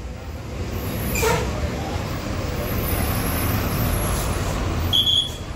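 Bus engines running in steady traffic noise. About a second in there is a short falling hiss, and near the end a brief high-pitched beep.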